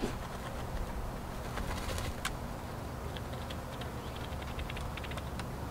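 Steady low outdoor rumble with scattered light clicks and ticks: a few sharp clicks about two seconds in, then a quicker run of small ticks in the second half, from quail moving about on the coop's gravel floor.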